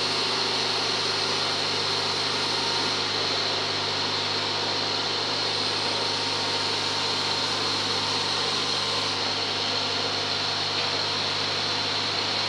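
Steady drone of a running workshop machine motor, even and unchanging throughout.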